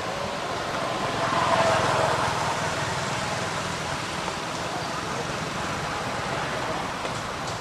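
A road vehicle passing: steady outdoor noise that swells about one and a half seconds in and then slowly fades.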